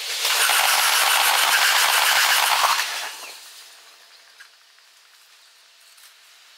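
A 15-car JR Yokosuka Line train passing close by, sped up six times so the wheel clatter over the rail joints runs together into a loud, fast rattle. It stops fairly suddenly a little under three seconds in and fades to a faint background.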